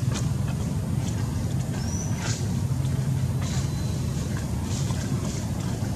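Steady low background rumble, with scattered faint crackles and a short high chirp about two seconds in.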